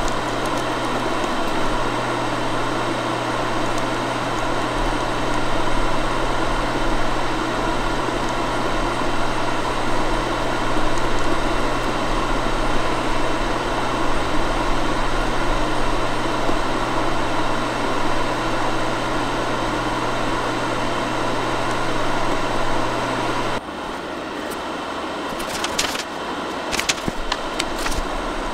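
Food dehydrator's fan running steadily with a low hum. About three-quarters of the way through the sound drops a little and the hum stops, and a few clicks follow near the end.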